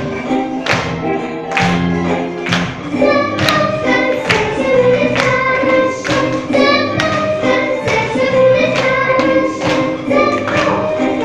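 A young girl singing into a microphone over a backing track, her voice coming in about three seconds in. The backing track keeps a steady beat about once a second.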